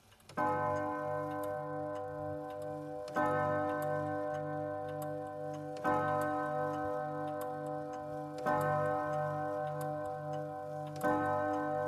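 A clock ticking over a held chord of steady tones that sounds anew about every two and a half seconds, five times, with a low pulse beneath it.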